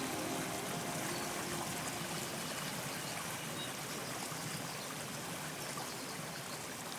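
A steady hiss of running water that slowly gets quieter, with the last faint notes of music dying away in the first second.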